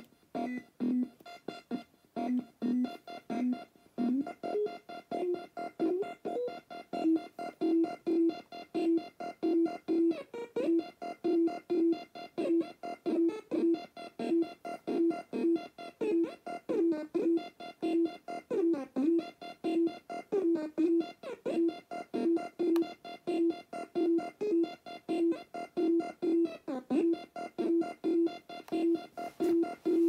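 Circuit-bent Palitoy Merlin electronic game playing a looping sequence of short electronic beeps, about two a second, over a steady higher tone. The pitch steps up about four seconds in and bends up and down in places.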